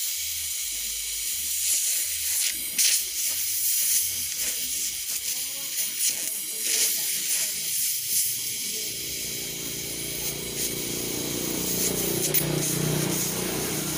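LPG-and-oxygen torch flame hissing steadily as it heats copper scrap to melt it, with a few sharp pops and crackles in the first half.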